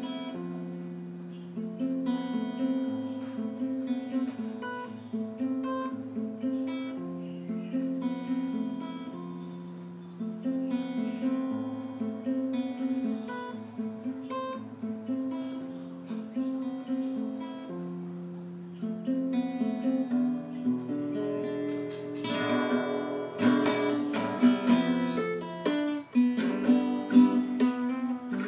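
Acoustic guitar played fingerstyle: a picked melody over alternating bass notes. About two-thirds of the way through the playing grows denser, with strummed chords and sharp percussive strokes.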